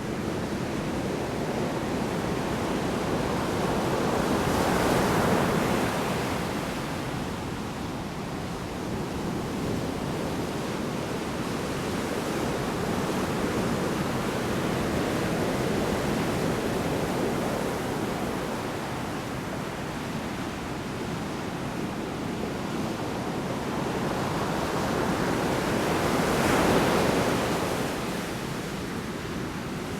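Heavy storm surf: large waves breaking on the shore over a constant rushing wash. The sound swells to a peak about five seconds in and again, loudest, near the end.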